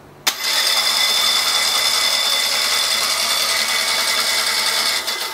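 12 V car starter motor, switched through a large silicon-controlled rectifier, spinning the flywheel and bare crankshaft of a stripped engine block with no load: a steady whir with a high whine. It cuts in with a sharp click about a quarter second in, runs evenly for about five seconds, and dies away near the end.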